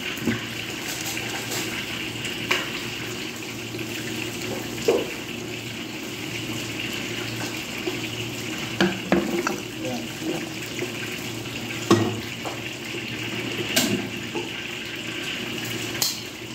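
Battered food deep-frying in hot oil in a steel wok: a steady sizzle, with occasional clicks and knocks of utensils against the pan.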